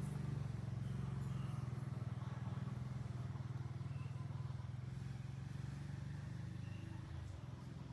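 Motor vehicle engine running steadily with a low hum, easing off a little near the end.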